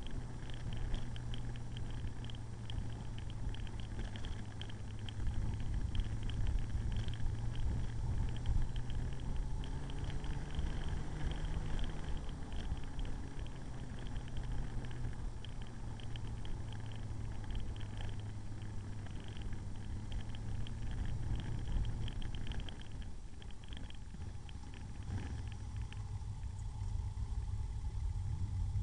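Motorcycle engine running at a steady cruising speed, heard from on the bike over steady road and wind noise. The engine note eases off near the end as the bike slows to a stop.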